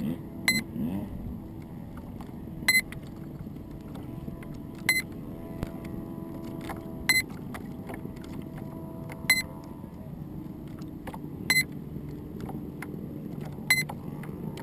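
A short high electronic beep repeating about every two seconds over a steady low hum.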